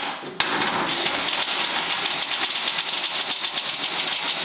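Electric drill bit grinding and chattering as it cuts through hard sheet steel, with a brief break about half a second in. The bit is of poor quality and struggles with the hard steel.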